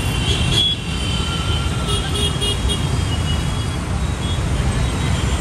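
Road traffic running steadily, with a vehicle horn beeping several times in quick succession about two seconds in.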